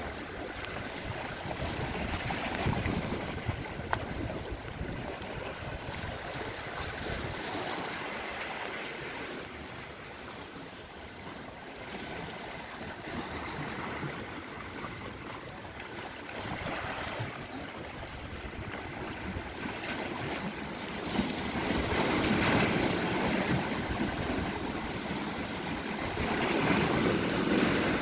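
Small Lake Ontario waves lapping and splashing against shoreline rocks, swelling and ebbing every few seconds and somewhat louder near the end.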